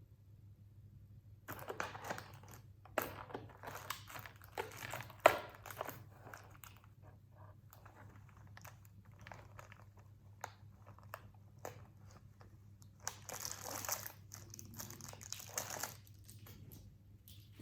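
Candy wrapper crinkling and crunching in irregular bursts as a cat plays with and bites at a wrapped candy, with scattered small clicks between a busy first stretch and a second dense burst near the end.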